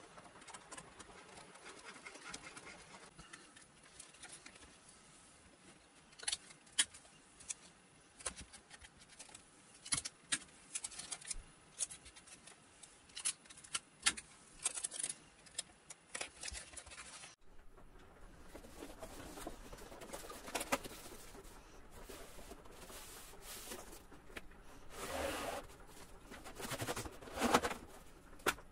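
Scattered light clicks and taps of hands handling foam model-aircraft parts and small tools on a cutting mat. A little past halfway the recording changes abruptly, and denser rustling and handling of a large foam wing follows, loudest near the end.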